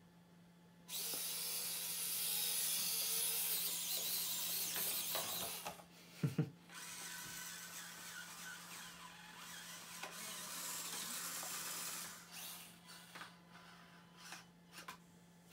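Small electric motors and gear drivetrains of mini RC cars whirring as they drive, loudest for the first few seconds, then quieter, and in short spurts near the end. A brief thump about six seconds in.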